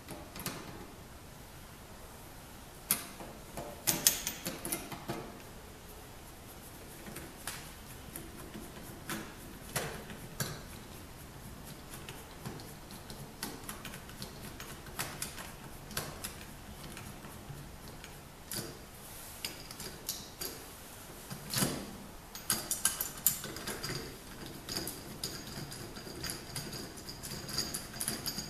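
Scattered light clicks and knocks of a door lockset being handled and worked on, some seconds apart. A faint steady high tone comes in near the end.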